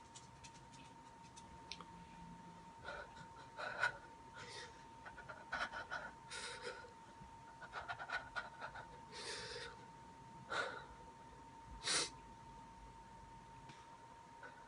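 Quiet, short breathy sounds, sniffs and panting breaths, scattered through the middle of the stretch, over a faint steady high whine.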